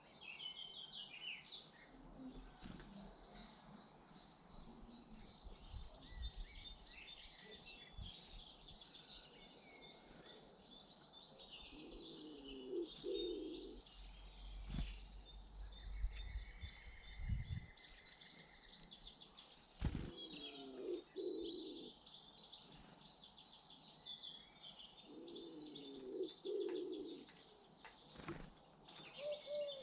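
Garden birds calling: small birds chirping and twittering high and fast throughout, while a pigeon coos in short low phrases that come back several times. A few sharp knocks stand out among the calls.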